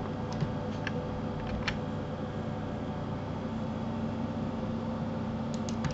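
Steady low background hum and hiss, with a few faint clicks in the first two seconds and again near the end.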